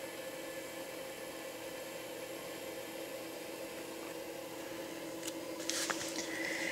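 A steady low hum with a few constant tones running under it. Near the end come some brief rustles and light knocks, as the camera is handled and moved.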